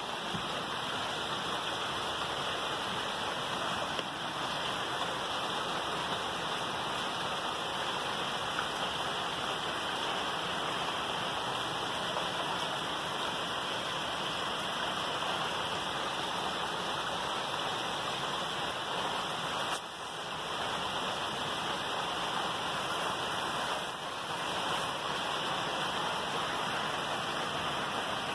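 Steady rain falling, an even hiss that dips briefly about twenty seconds in.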